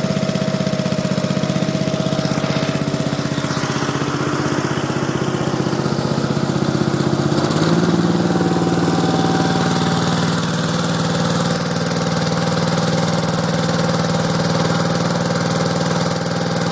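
Gravely 8163B garden tractor's 16 HP engine running steadily on a freezing day, still cold after a hard cold start. Its pitch steps up slightly about seven or eight seconds in.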